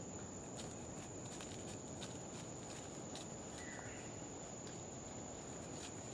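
Peccary foraging in dry leaf litter: faint scattered rustles and light crunches as its hooves and snout move through the leaves. Behind it runs a steady forest background with a continuous high-pitched whine, and a brief faint chirp comes about four seconds in.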